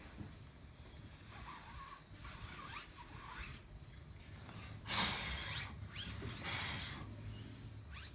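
Cloth wiping and scrubbing a car tyre's rubber sidewall to clean off gunk, a rough rubbing with short squeaks. It comes in patches, with the hardest scrubbing starting about five seconds in and lasting about two seconds.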